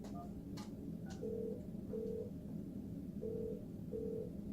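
Office desk phone buzzing an internal extension: two faint clicks, then two double rings, each a pair of short steady beeps.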